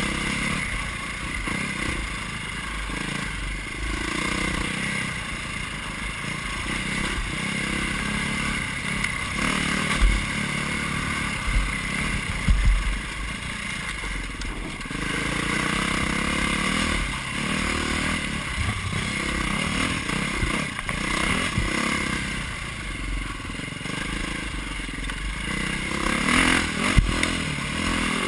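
KTM dirt bike engine running under the rider, its note rising and falling with the throttle over rough trail, with the bike rattling and clattering. Sharp knocks about ten and thirteen seconds in and again near the end.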